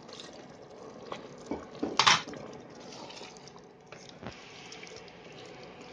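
Ladle stirring a pot of mutton and spinach curry with water just added, the liquid sizzling and bubbling. The ladle knocks against the pot a few times, with one loud clatter about two seconds in.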